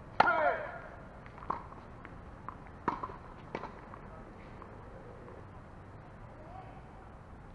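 A cat meows once, a short call falling in pitch, followed by a few scattered light knocks or taps.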